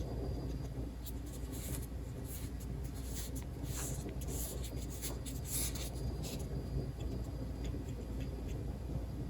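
Marbles rolling and clicking along a wooden marble-run track: faint, irregular rattling and ticking over a low steady hum.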